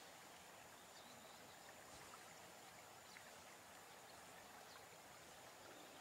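Near silence: faint outdoor background hiss with a thin, steady high whine and a few faint, short chirps scattered through.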